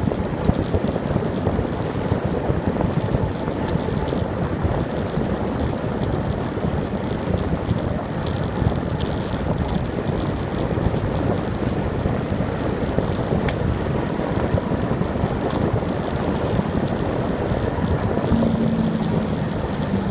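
Steady rush of wind on the microphone mixed with tyre rumble from a bicycle rolling along a paved road, with light rattles. Near the end a steady engine hum joins in.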